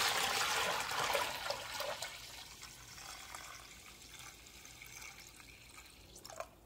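Green bright nickel plating solution poured from a steel pot into a plastic tub. It splashes loudly at first, then thins to a quieter trickle as the pour slows.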